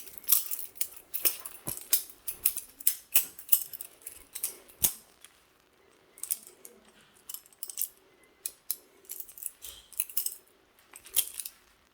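A cheap Chinese-made balisong (butterfly knife) being flipped: quick metallic clicks and clacks as the handles swing around and strike. They come in two runs, with a short pause about five seconds in.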